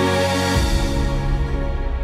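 Background music of sustained chords over a deep bass; the harmony shifts to a new bass note about half a second in.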